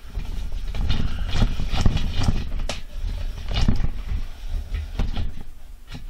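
Camera being handled and moved: a run of irregular knocks and bumps over a low rumble.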